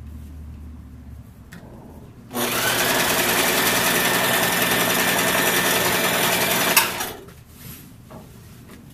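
Electric household sewing machine running steadily for about four and a half seconds as it stitches curtain fabric, then stopping abruptly. Before it starts and after it stops there is only quiet handling of the fabric.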